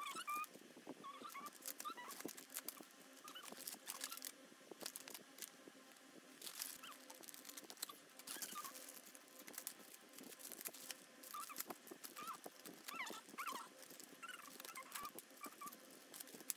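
Plastic and foil cat-treat packets crinkling and rustling as they are torn open, handled and laid on a wooden floor: faint, irregular light clicks with occasional short high squeaks.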